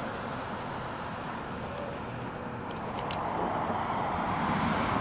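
Steady outdoor background noise, a rushing hiss without any clear tone, growing a little louder in the second half.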